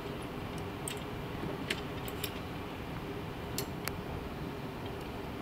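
Motorised satellite antenna mount running while it stows: a steady faint hum with a few sharp ticks scattered through.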